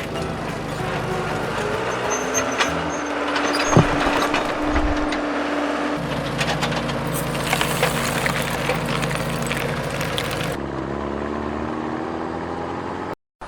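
Heavy construction machine sound effects: engines running steadily with scattered clanks and knocks, the mix of engine sounds changing a few times. The sound cuts out suddenly for a moment near the end.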